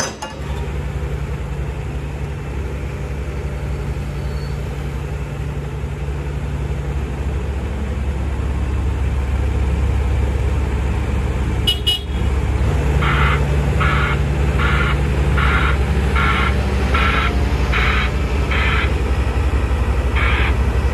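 Hitachi ZX170W wheeled excavator's diesel engine running steadily while the machine works its boom and arm. From about halfway, its travel alarm beeps evenly, about one and a half beeps a second with a short break near the end, as the machine drives.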